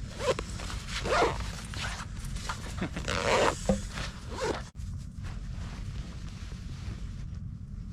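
Excited dog playing in and around its fabric bed: rustling and scuffling, with several short vocal sounds from the dog.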